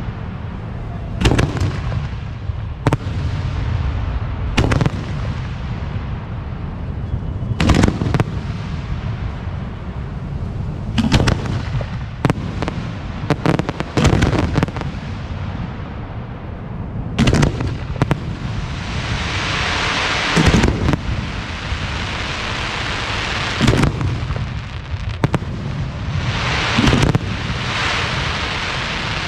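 Aerial firework shells going off one after another, each a sharp boom a second or two apart. From about 18 seconds in, a long crackling hiss of breaking stars fills the gaps between the booms, and comes again near the end.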